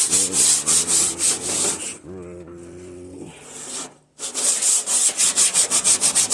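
Rhythmic rubbing or scraping strokes, three or four a second, that pause about two seconds in and resume faster near the end.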